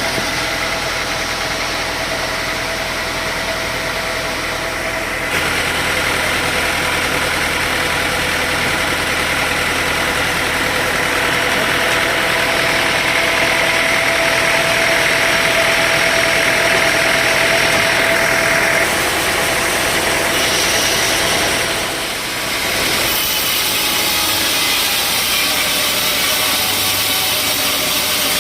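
Sawmill machinery running steadily with an engine-like drone and a few steady whining tones. The sound changes abruptly several times.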